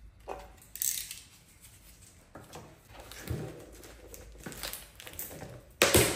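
Hands handling a vacuum-bagging setup: plastic bagging film rustling and clear plastic tubing being moved and pressed, with scattered light knocks and one sharp knock near the end.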